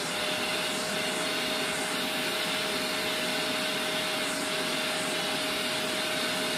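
Shark Rotator Powered Lift-Away True Pet upright vacuum (NV752) running steadily and sucking through its bare wand nozzle, with no floor head fitted. A steady whine over a strong hiss of rushing air.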